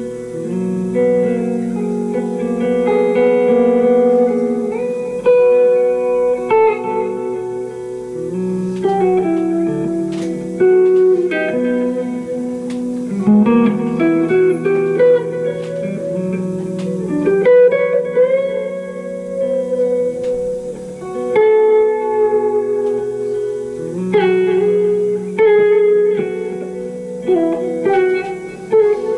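Live small-group jazz: an electric jazz guitar plays a melodic passage of single notes and chords over an upright double bass, with drums behind.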